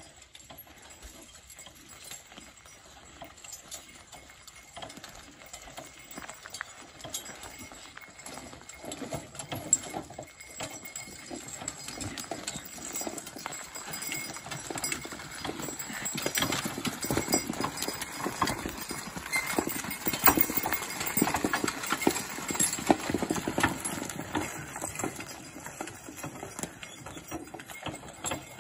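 Hoofbeats of a team of two horses walking in harness, a steady clip-clop that grows louder through the middle and eases off near the end.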